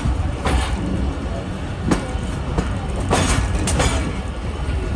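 Passenger train running along the track, heard from a coach: a steady low rumble of wheels on rail with several sharp clacks at irregular intervals.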